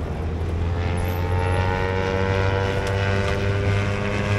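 An engine drone with a low steady hum underneath, its higher pitch slowly sinking over a few seconds.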